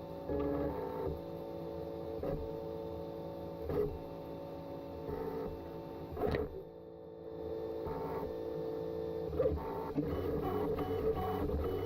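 CTC 3D printer's stepper motors whining as it prints, steady tones that shift in pitch every second or so as the moves change, with a few sharp clicks and the loudest one about six seconds in.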